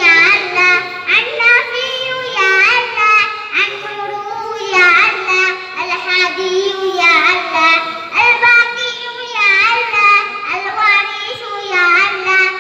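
A young girl singing into a microphone, a continuous melody in phrases with long sliding and wavering notes.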